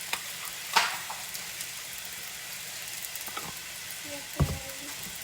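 Rice frying in hot oil in a skillet, a steady sizzle, with a sharp knock about a second in and a duller thump near the end.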